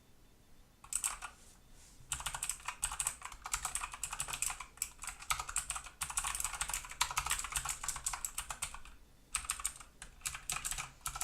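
Typing on a Motospeed CK108 mechanical keyboard with Blue switches: a fast, loud run of key clicks starting about a second in, with a short pause near the end.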